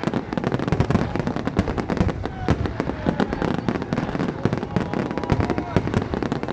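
Fireworks display: a dense, continuous run of bangs and crackling from many shells bursting in quick succession.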